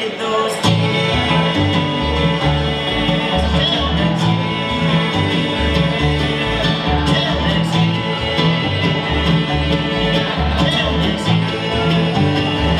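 Bluegrass band playing: upright bass plucking a steady beat under banjo, mandolin and acoustic guitar.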